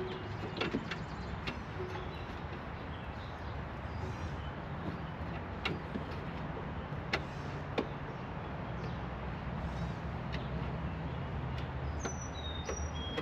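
Steady low rumble with a few sharp, isolated clicks scattered through it, and two or three short high falling chirps near the end.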